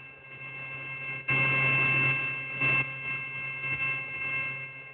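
Mori Seiki NHX4000 horizontal machining center's spindle running at 8,000 RPM: a steady whine of several high tones over a low hum, growing louder about a second in.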